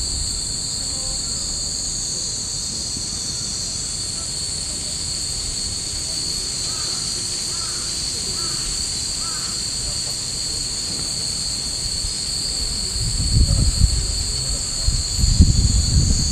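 Cicadas droning, a steady high-pitched buzz that keeps on without a break, with low rumbles on the microphone near the end.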